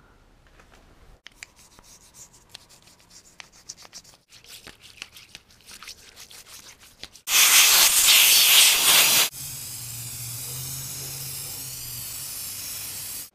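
A toothbrush scrubs the engine casing with scouring-powder cleanser in quick scratchy strokes. About seven seconds in, a loud hiss lasts about two seconds and cuts off. A steadier, quieter hiss follows: an aerosol spray paint can spraying the engine block.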